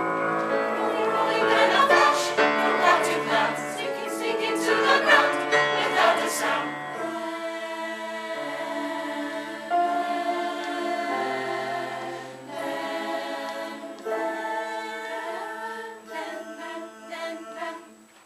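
Choral music: a choir singing held chords, fuller in the first several seconds and sparser after.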